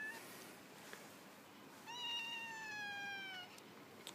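Domestic cat meowing: the end of one meow right at the start, then one long, drawn-out meow about two seconds in, falling slightly in pitch.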